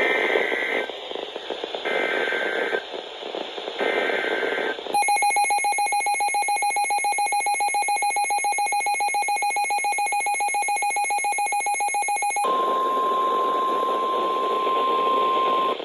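Emergency Alert System tones opening a flood warning. Three short bursts of buzzy digital header tones about two seconds apart come first. About five seconds in, the harsh two-tone EAS attention signal sounds for roughly seven seconds, then switches to a single steady higher-pitched 1050 Hz weather-radio tone.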